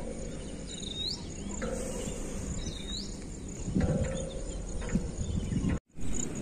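Forest ambience: insects trilling steadily at a high pitch, while a bird gives a short rising call twice, under a low rumbling background. The sound drops out briefly near the end.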